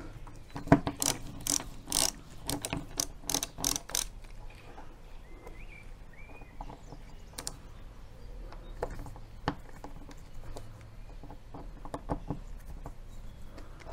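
Ratchet screwdriver clicking as it backs out the screws of a motorhome door retaining catch: quick runs of clicks through the first four seconds, then scattered single clicks.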